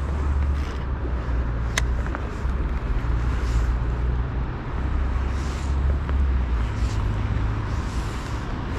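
Steady low engine rumble with a background hiss, in busy city surroundings; a single sharp click about two seconds in.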